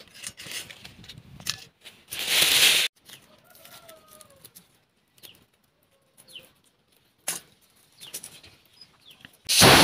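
Dry bay leaves and a plastic bag being handled, with small clicks and rustles as whole spices and leaves go into a steel bowl. There are two loud rustling bursts, one about two seconds in that lasts under a second, and another starting near the end.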